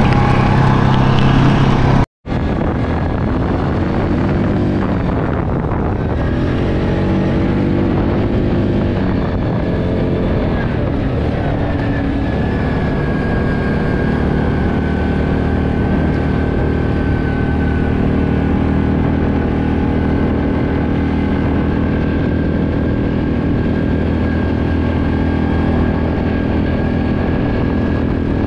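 ATV engine running as the quad rides along a dirt trail, its pitch rising and falling for the first several seconds and then holding steady, with a thin high whine over it in the second half. The sound cuts out for an instant about two seconds in.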